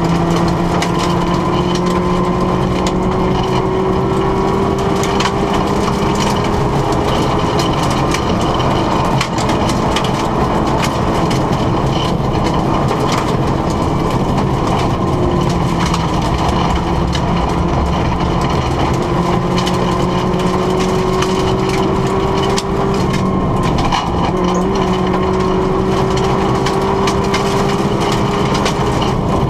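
Rally car engine pulling hard in long gears, its revs climbing slowly and dropping back twice, heard from inside the cabin. Under it is a steady crackle of gravel and stones hitting the underbody at speed on the loose road.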